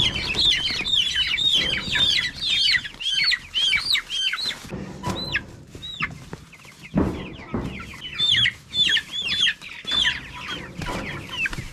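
A batch of young meat chicks peeping: many high, quick chirps overlapping in a busy chorus. A few dull thumps are heard at the start and again about seven seconds in.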